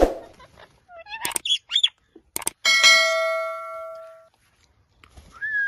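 A few short gliding squeaks and whistles from a ringneck parrot, then a metal bell struck once, ringing and dying away over about a second and a half; a small rising whistle near the end.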